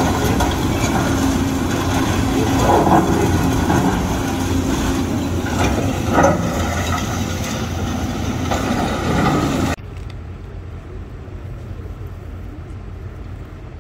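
Tracked excavators working a heap of concrete rubble: diesel engines running, with knocks and clanks from the buckets and steel tracks. About ten seconds in the sound cuts off abruptly to a much quieter steady background.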